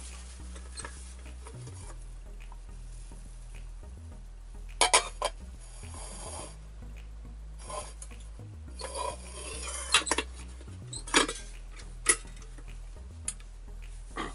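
Clattering and scraping of metal rice cooker parts being handled: several sharp clinks and knocks, the loudest about five seconds in and again around ten to twelve seconds, with rasping scrapes between them, over a low steady hum.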